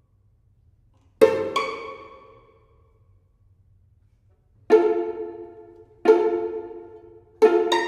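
String quartet playing sparse plucked (pizzicato) chords, each striking sharply and ringing away over about a second. Two come in quick succession about a second in, then a pause of near silence, then single chords about every 1.3 seconds, with a last pair close together near the end.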